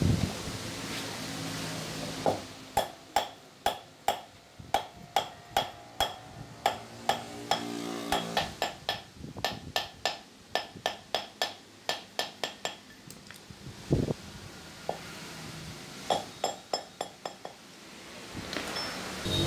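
Hand hammer striking a Honda CD motorcycle's front fork tube on a block: a steady run of ringing metal blows, about two or three a second. After a pause comes one heavier knock, then a short, quicker run of taps near the end.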